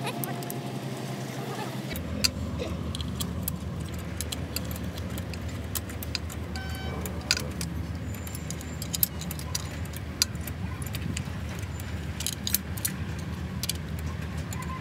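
Scattered metallic clicks and clinks of hand tools and small parts against a truck engine's cylinder head during reassembly, over a steady low hum that starts about two seconds in.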